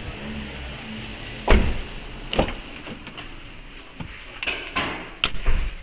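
Clunks and knocks of a car's door and interior trim being handled. A heavy thump comes about a second and a half in, then lighter knocks and clunks.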